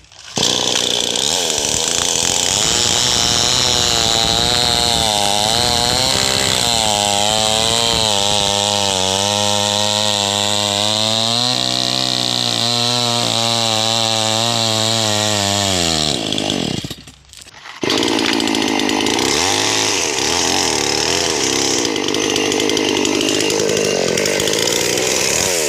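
Two-stroke petrol chainsaw at full throttle crosscutting a teak log, its engine pitch wavering and sagging under the load of the cut. It drops out briefly about two-thirds of the way through, then cuts on.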